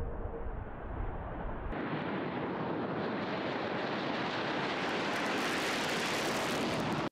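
Jet engine noise from a B-2 Spirit bomber's four turbofans during takeoff. A deep rumble changes abruptly, just under two seconds in, to a brighter, hissing rush that grows a little as the bomber passes along the runway, then cuts off suddenly.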